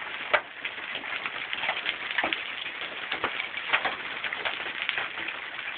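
Hailstorm: a steady hiss of heavy rain, with irregular sharp clicks of hailstones striking hard surfaces several times a second.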